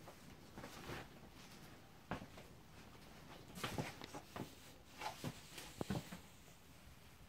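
Quiet room with a handful of soft knocks and clicks between about two and six seconds in, from footsteps on the floor and small handling noises as the camera is carried through the trailer.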